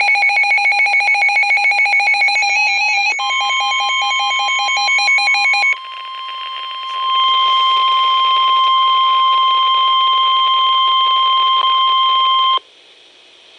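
Weather alert radios sounding an alarm. A rapidly pulsing electronic beep plays for the first few seconds, then NOAA Weather Radio's steady 1050 Hz warning alarm tone takes over. The tone holds for about nine seconds, cuts off sharply, and heralds a Special Marine Warning.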